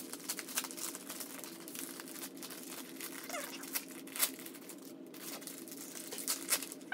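A mailed package being handled and opened: a scattered run of crinkles, rustles and small clicks from the packaging, over a steady low hum.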